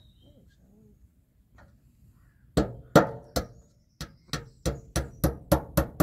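Hammer driving nails into sheets on a shed wall: a quick run of sharp strikes, about three a second, starting about two and a half seconds in.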